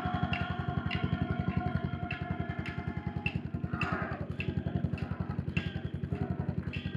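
Yamaha SR400's air-cooled single-cylinder engine running at a steady, even pace, its fast firing pulses unchanging. A light, regular click sounds about every half second, and a steady mid-pitched hum sits over the engine for the first half.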